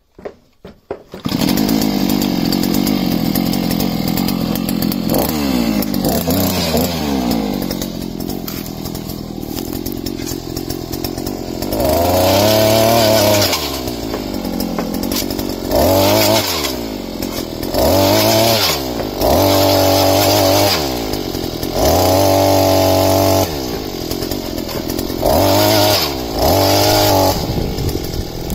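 Two-stroke petrol engine of an NTM TB25 earth auger starting up about a second in and running, then revved to full throttle in seven short surges, falling back between them, as the auger bores into stony soil.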